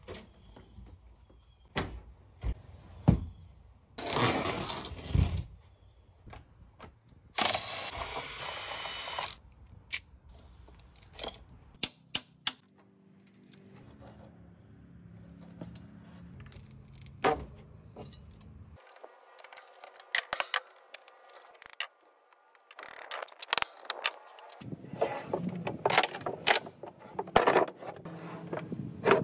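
Plywood sheets and metal hand tools being handled: scattered knocks, clinks and clatter, with a stretch of steady hum in the middle. Near the end comes a dense run of knocks and scraping as a pry bar works at plywood.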